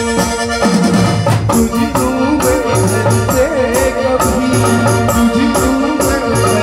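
Live band playing an instrumental passage of a Hindi film song: an electronic keyboard carries a wavering, gliding melody over a steady drum and dholak beat.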